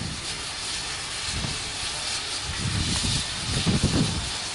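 Steady steam hiss from the stationary GWR Modified Hall 4-6-0 locomotive 'Foremarke Hall' standing in steam, with an uneven low rumble underneath that grows stronger in the second half.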